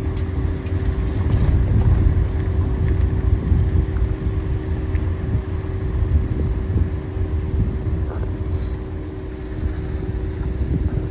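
Low, steady rumble of a heavy diesel engine running, with a constant hum over it, swelling slightly a second or two in.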